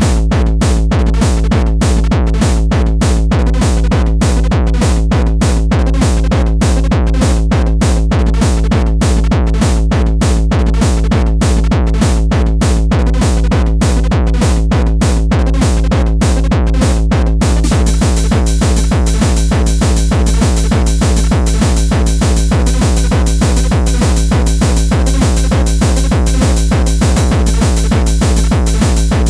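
Gabber hardcore techno at about 200 bpm: a heavy, distorted kick drum pounding steadily, with a bright high layer of hi-hats or noise joining a little past halfway.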